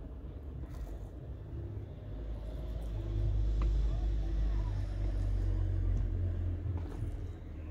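Low rumble of a passing motor vehicle, swelling about three seconds in and easing off near the end.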